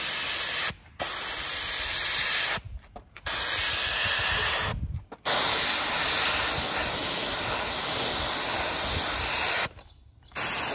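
Compressed-air gravity-feed paint spray gun hissing as the trigger is pulled and released: about five sprays with short pauses between them, the longest about four seconds. It is misting black paint over a masking-tape edge.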